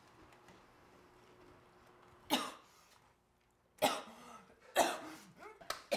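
A person coughing: four sharp coughs, the first about two seconds in and three more in quick succession near the end.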